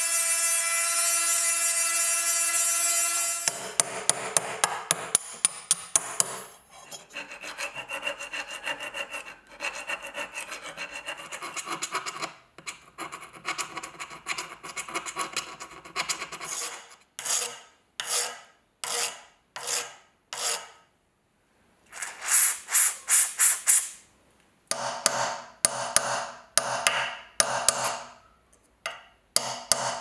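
Small rotary tool with a conical abrasive stone grinding rust off a steel buckle tongue. It runs with a steady whine and stops about three and a half seconds in. Then comes hand abrasion of the metal: continuous rubbing with sharp ticks, then separate strokes in groups with short pauses between them.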